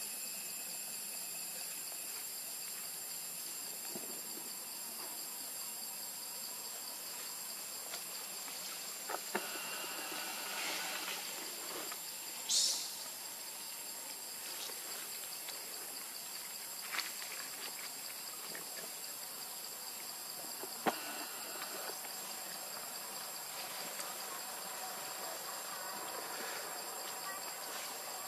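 Steady, high-pitched chorus of insects such as crickets or cicadas, with a few faint clicks and one brief high squeak about halfway through.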